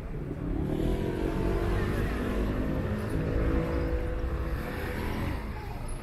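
A motor vehicle's engine running close by with a steady hum, growing louder about a second in and fading near the end, over low street rumble.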